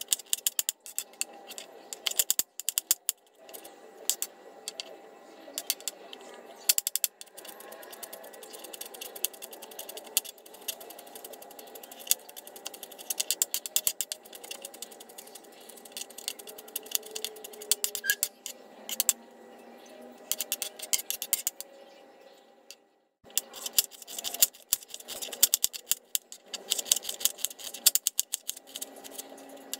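Kitchen knife chopping on a wooden cutting board: quick runs of sharp taps as garlic is minced, with short pauses between runs, and the knife slicing through a shallot near the end.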